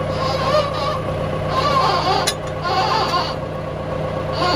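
Tractor engine idling steadily, with short animal calls of wavering pitch repeating about once a second over it.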